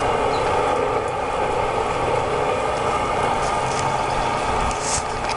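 Newly installed furnace running, its blower giving a steady rushing noise with a faint hum.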